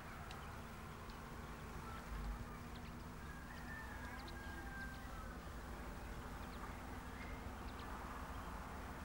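Faint outdoor field ambience: a steady hiss and low hum with faint distant bird calls, and a dull low thump about two seconds in.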